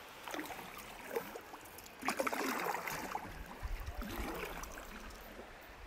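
Double-bladed kayak paddle dipping into calm river water, several splashing strokes with the loudest about two seconds in.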